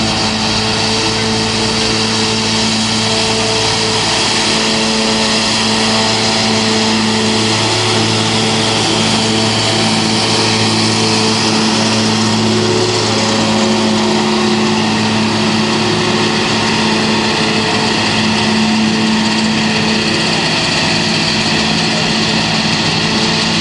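Farm machinery running steadily in the field: an even engine note with constant humming tones and mechanical noise, holding the same pace throughout.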